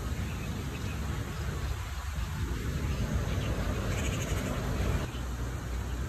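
Outdoor ambience: a steady low rumble with a faint high chirping patch about four seconds in.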